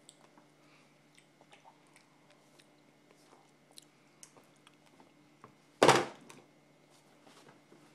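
A plastic sippy cup set down hard on a high-chair tray: one loud knock about six seconds in, among faint small clicks and taps.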